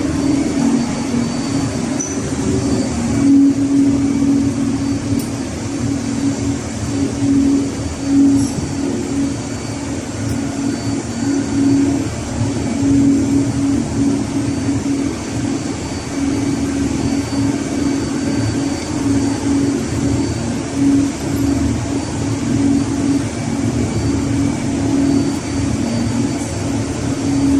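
Steady drone of a ship's engine-room machinery, with a low hum that swells and fades unevenly.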